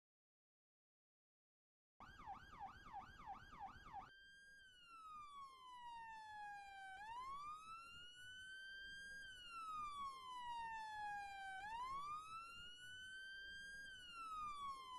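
Faint police siren. After about two seconds of silence it starts in a fast yelp, warbling about four times a second, then about two seconds later switches to a slow wail that rises and falls every four to five seconds.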